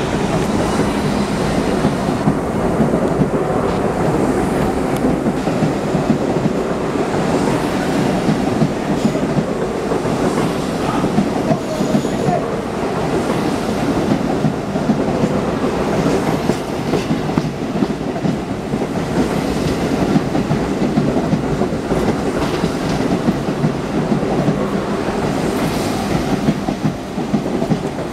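R32 New York City subway train rolling past along the platform, a steady rumble of steel wheels on rail with repeated clicks as the wheels cross the rail joints.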